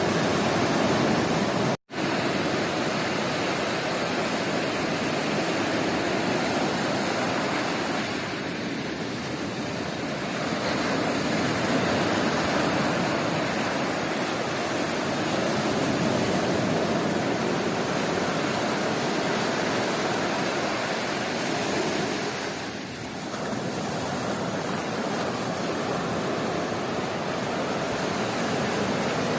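Sea surf breaking and washing up a beach: a continuous rush of waves that eases briefly about eight seconds in and again about twenty-three seconds in. The sound drops out completely for a split second about two seconds in.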